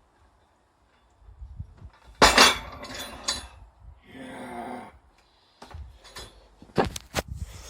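Loaded anvil stub grip implement clanking metal on metal as it is handled and lifted: a loud clank about two seconds in, a few more clinks, then further sharp knocks near the end. A strained grunt sounds in the middle.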